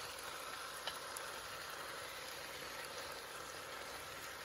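Curry chicken, potatoes and carrots sizzling in a pot, a faint steady hiss, with one light tap about a second in.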